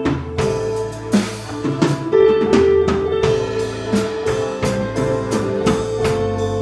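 Instrumental break of a bolero song played by a live band: drum kit keeping a steady beat under electric guitar, with held melody notes and no vocal.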